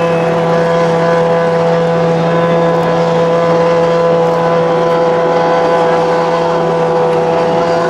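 A telehandler's engine running steadily at a single constant pitch, held up in revs to drive the lift.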